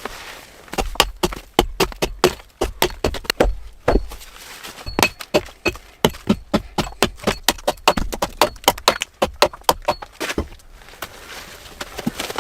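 A rapid, irregular series of sharp knocks and cracks, several a second, pausing briefly near the middle and stopping about a second before the end.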